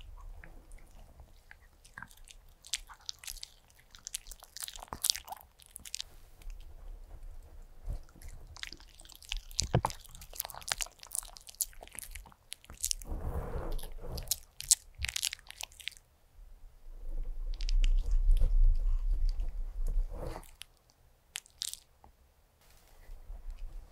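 A white Pomeranian chewing and biting soft chicken-and-cheese dog food up close, with many sharp wet smacks and crunchy clicks. A low rumble runs for a few seconds about three quarters of the way through, the loudest part, before a short quiet spell near the end.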